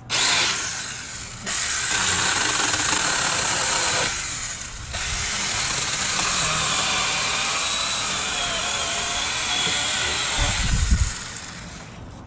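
24V cordless 4-inch mini chainsaw running, its electric motor and chain cutting through a wooden branch, easing off briefly twice. A low thump about ten and a half seconds in, then the saw quietens near the end.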